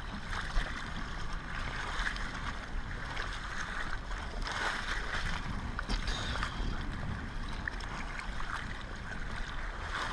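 Strong wind buffeting the microphone over the steady wash of breaking surf, a continuous rushing noise with a deep rumble that swells briefly about halfway through.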